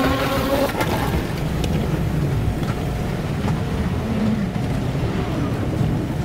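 Steady low rumble with no clear rhythm, with faint voices briefly near the start.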